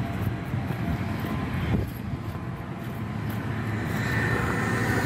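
Steady whir and low rumble of AAON rooftop HVAC units running, growing louder over the last couple of seconds with a faint high whine coming in about four seconds in.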